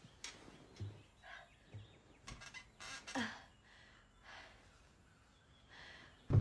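A young woman crying: uneven breaths and a falling whimper about three seconds in, with soft rustling and light knocks.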